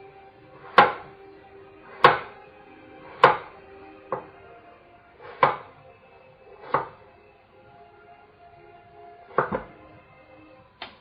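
Kitchen knife slicing through a peeled apple and knocking down onto a wooden cutting board, about eight sharp chops at an uneven pace of roughly one a second, with a pause a little past the middle.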